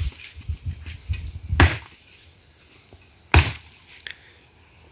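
Firewood being split with chopping blows, two sharp strikes landing about a second and three quarters apart.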